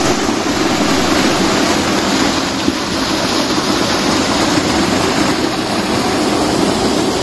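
Waterfall pouring onto rocks close by: loud, steady rushing water.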